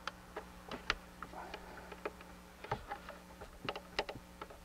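Clear plastic tubing being fed by hand down the dipstick tube of a Kawasaki STX-15F jet ski engine. It makes a run of irregular small clicks and taps as the tubing and fingers knock against the engine.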